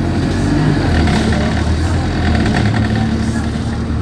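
Diesel engine of an Alexander Dennis Enviro200 single-deck bus running with a steady low drone, heard from on board.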